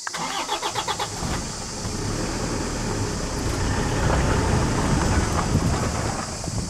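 Jeep engine cranked by its starter, a fast even chugging for about a second and a half, then catching and running with a low rumble that builds up as it revs.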